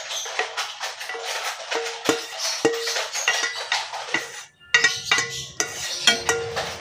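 Wooden spatula scraping and tapping against a non-stick frying pan in quick, irregular clicks as stir-fried squid is pushed out onto a plate. The clicks stop briefly past the middle, and music with a low hum is heard near the end.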